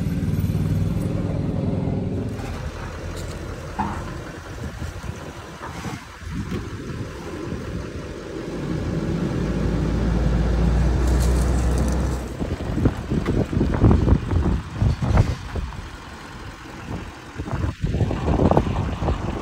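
Pickup truck engine running, with a strong low rumble for a few seconds in the middle and choppy, uneven noise near the end.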